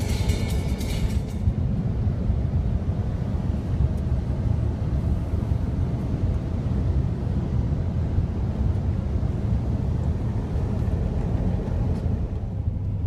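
Steady low road and engine rumble inside the cabin of a Nissan Patrol Y62 cruising at highway speed while towing a caravan.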